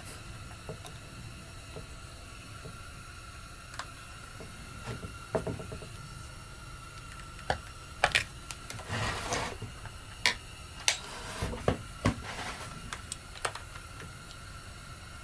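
Hand tools and small parts clicking and knocking while a replacement carburetor is fitted to a chainsaw, with a brief rubbing scrape about nine seconds in.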